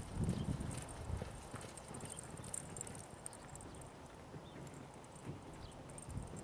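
Hoofbeats of a Quarter Horse reining stallion: a series of dull, low thuds at an uneven pace.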